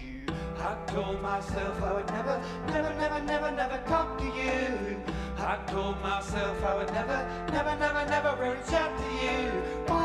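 Live band music: keyboards playing over a steady low bass and a regular beat.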